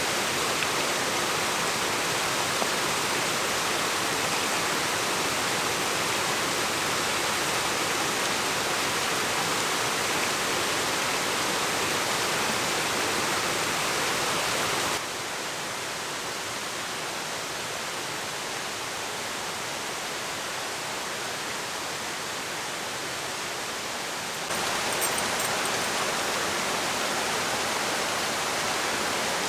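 Waterfall rushing steadily, an even hiss of falling water. About halfway through it drops quieter and duller for some ten seconds, then comes back up.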